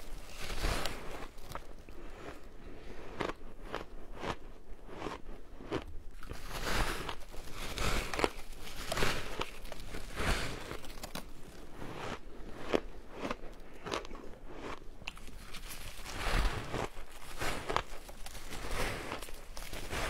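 Close-miked biting and chewing of compacted, colour-coated shaved ice: a run of irregular, crisp crunches as chunks are bitten off and ground between the teeth.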